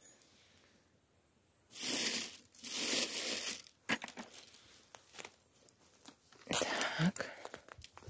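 Footsteps and rustling on dry forest litter of needles, twigs and leaves: three stretches of crunching and crackling, two close together around two to four seconds in and one near the end, with small snaps between.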